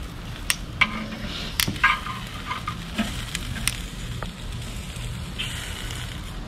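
Metal tongs clicking and scraping on the cooking grate of a Big Green Egg ceramic kamado grill as eggplant slices are turned, with a series of sharp clicks in the first four seconds. The eggplant slices are sizzling over the charcoal, with a short hiss near the end.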